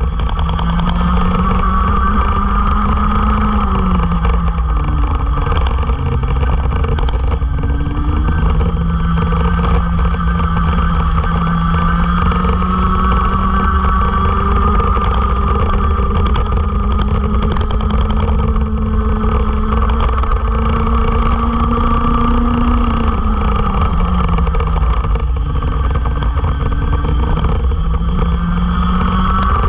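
Racing kart engine running at high revs, heard from on board. The pitch climbs slowly along the straights and drops sharply when the throttle is lifted, about four seconds in and again around twenty-three seconds, then climbs again.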